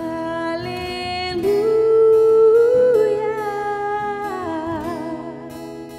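A woman singing long held notes to acoustic guitar accompaniment. Her voice climbs about a second and a half in, holds, then slides down in a wavering run near the end.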